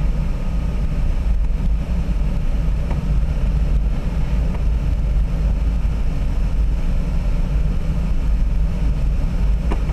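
Steady rush of air around a Duo Discus glider in flight, heard inside the cockpit as a loud, even low rumble of wind noise, with the landing gear extended.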